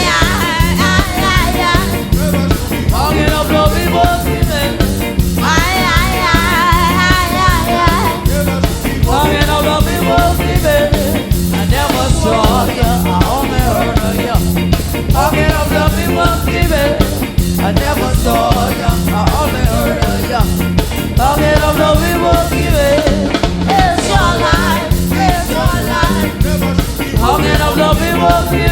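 Ska song, a woman singing over a band with a steady bass line and beat.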